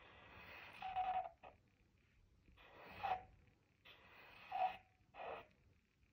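Sharpie permanent marker drawn across paper in about four separate strokes. Each is a faint scratchy hiss, several ending in a short squeak of the felt tip.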